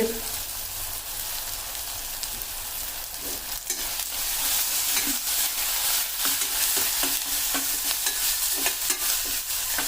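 Onion-tomato masala with spices frying and sizzling in hot oil, stirred with a spatula that scrapes and knocks against the pan again and again from a few seconds in.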